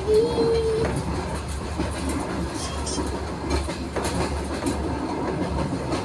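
Passenger train running along the track, heard from inside a carriage: a steady rumble and rattle with scattered clicks of the wheels over the rails.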